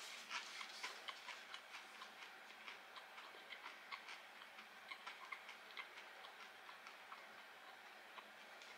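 A person chewing crisp fried food close to the microphone: faint, irregular crunching clicks about three a second that grow softer as the bite is chewed down.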